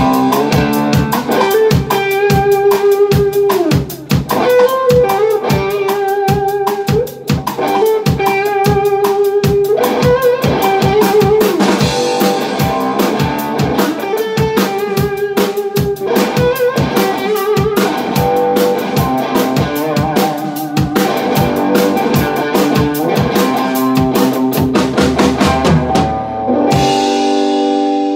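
Instrumental blues played live on electric guitar and drum kit, the guitar playing sustained lead lines over a busy, steady drum beat. Near the end the drums stop and a final guitar chord rings out.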